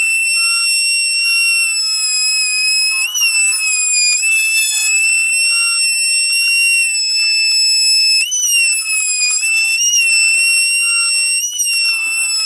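CNC router spindle running at high speed while cutting wood: a steady high-pitched whine whose pitch wavers briefly a few times, with fainter cutting noise underneath.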